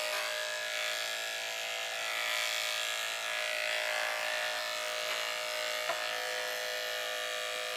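Corded electric dog grooming clipper running with a steady hum while shaving fur from the inside of a small dog's back leg.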